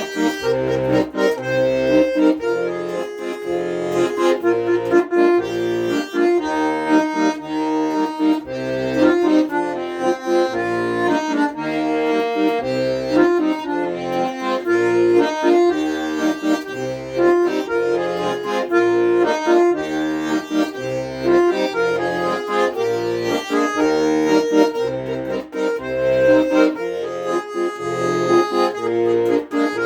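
Accordion playing an instrumental tune: a melody line over a steady, evenly pulsing bass accompaniment.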